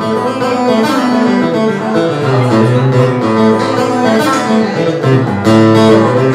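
Acoustic guitar and a Roland RD-700NX digital stage piano playing a tune together, with notes held steadily over the guitar.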